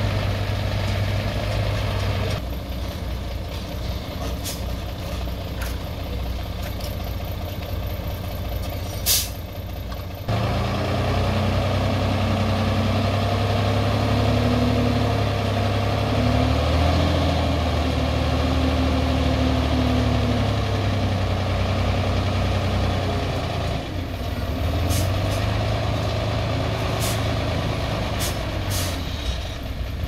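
Heavy diesel earthmoving engine running steadily, then working harder and louder from about ten seconds in and easing off near the end. A short sharp hiss comes about nine seconds in, and a few brief high ticks follow later.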